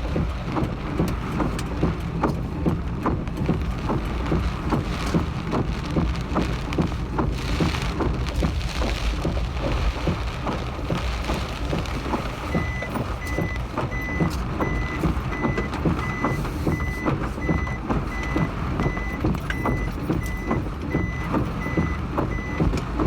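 Heavy typhoon rain and wind buffeting the microphone, a constant rumbling hiss full of patters. About halfway through, a vehicle's reversing beeper starts, a steady high beep repeating about one and a half times a second.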